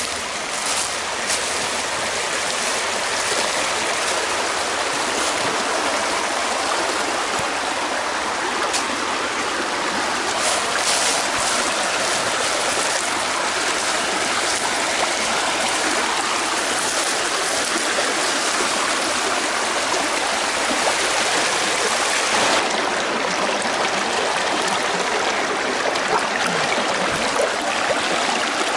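Small rocky woodland stream running over stones: a steady, loud rush of flowing water that starts suddenly.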